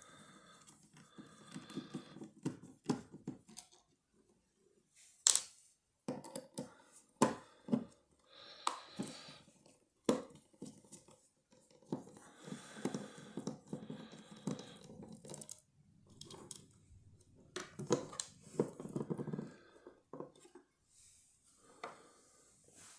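Small metal parts of a lever lock being handled as the lock is taken apart: scattered sharp clicks and taps, with light scraping and rustling between them.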